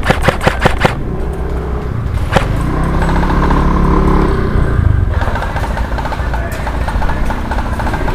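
Airsoft gun firing a rapid full-auto burst for about the first second, then a single shot about two seconds in. A motor vehicle's engine swells past after that, with a rattle of fast clicking through the rest.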